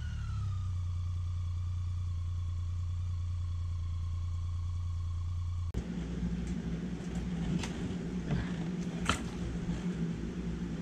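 A steady low hum, then, after an abrupt change about halfway through, the knocks and clatter of a motorcycle's front wheel being bounced and rolled out of an aluminium Condor wheel chock. The few sharp knocks are the loudest, the strongest about nine seconds in.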